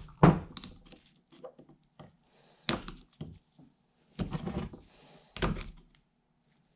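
Screwdriver tip picking and scraping at the C-clip inside a John Deere mower deck spindle housing, giving four or five separate sharp metal clicks and knocks about a second apart, with fainter ticks between them.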